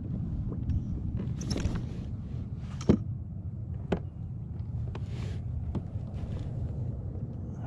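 Light handling knocks and rustles aboard a fishing kayak, the sharpest knock about three seconds in, over a steady low rumble of wind on the microphone.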